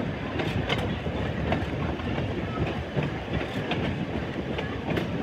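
PCC streetcar running along the track: a steady rumble of wheels and running gear, with sharp clicks and clacks at irregular intervals.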